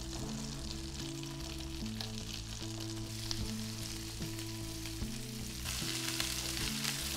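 Butter, smashed potatoes and broccoli sizzling in a frying pan, the sizzle growing louder about two thirds of the way through. Background music with sustained low notes plays underneath.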